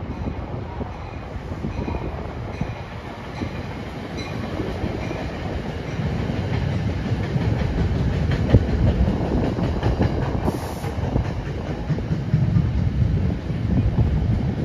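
NJ Transit electric commuter train rolling past on a far track, a steady low rumble of wheels on rail with fine clickety-clack. It grows louder about halfway through.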